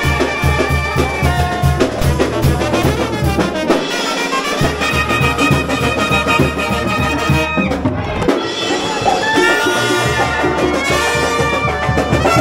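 Live brass band with trumpets and a drum kit playing loudly: held horn notes over a steady, driving bass beat, with the horns breaking off briefly about eight seconds in.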